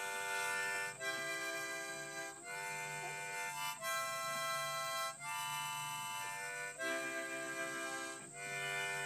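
Harmonica playing a slow run of held chords, each lasting about a second or so, with short breaks between them.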